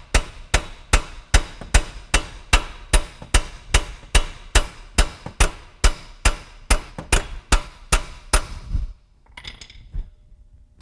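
Steel hammer striking metal in a steady run of ringing blows, about two and a half a second, driving a serrated strut bolt home through the spindle. The blows stop about nine seconds in.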